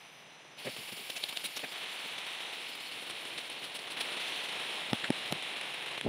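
Steady rain pattering on forest leaves, starting suddenly about half a second in, with a few sharp cracks, most of them near the end.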